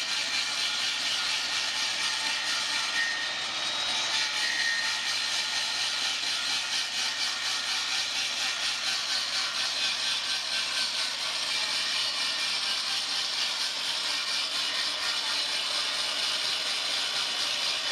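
Circular saw cutting into a long wooden shaft as it spins on a homemade lathe, turning it down. A steady, even rushing noise that holds at one level throughout.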